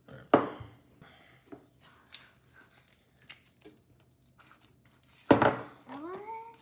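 A metal spoon digging into a small jar of Vegemite, with one sharp click about a third of a second in and then a few light ticks and scrapes. Near the end comes a short vocal exclamation.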